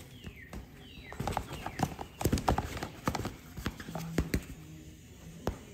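A cat scrabbling and batting inside a pop-up fabric play tunnel: a quick, irregular run of rustling taps and knocks, densest in the middle, with a few scattered taps afterwards.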